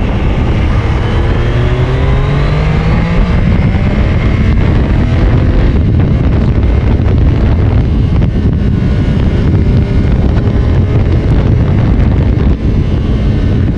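Triumph 660 Daytona's inline three-cylinder engine rising in pitch as the bike accelerates for the first few seconds. After that, steady wind noise on the microphone at road speed covers the engine.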